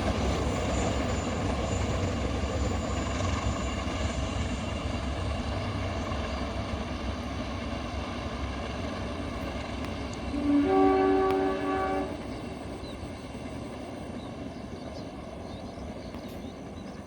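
Passenger train running over the rails, its rumble slowly fading. About ten seconds in, a diesel locomotive horn sounds one loud blast of about a second and a half.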